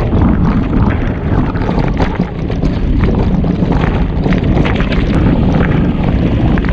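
Wind buffeting the microphone of a bike-mounted action camera as a mountain bike rides fast over a dirt track, with a steady rumble of knobby tyres on the loose surface and frequent sharp rattles from the bike jolting over bumps.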